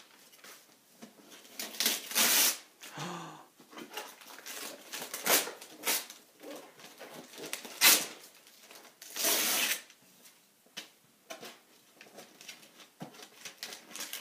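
A cardboard toy box being handled and shifted about on a wooden floor: uneven rustles, scrapes and light knocks, a few of them louder, with about a second of longer rustling near the middle.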